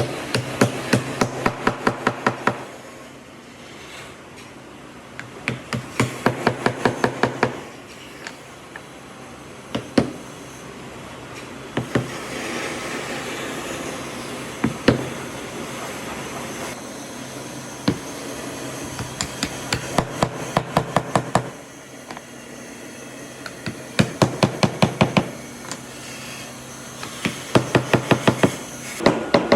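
Hammer tapping on wood in quick runs of about five or six blows a second, each run lasting a couple of seconds, five runs in all, with a few single knocks in the pauses between.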